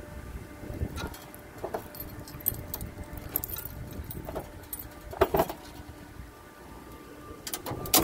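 A ring of keys jangling as a key is worked in the trunk-lid lock of a 1940 Chevrolet, with scattered metallic clicks and a louder clatter about five seconds in. Near the end the lock releases and the trunk lid is lifted.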